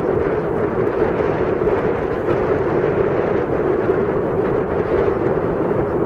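Wind buffeting the camera microphone: a loud, steady rushing noise with no breaks.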